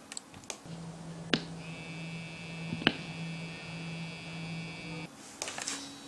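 Sharp clicks of call-button pagers being pressed, then a steady low buzz lasting about four seconds from the SINGCALL APE6900 waterproof bracelet receiver vibrating under water in a glass jar. The buzz is the receiver signalling that it has received the pager's call.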